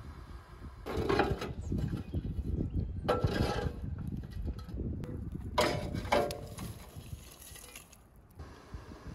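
Lumps of charcoal clinking and rattling against each other and the steel mangal as they are stirred with a poker, in three short bursts a couple of seconds apart, over a low rumble of wind on the microphone.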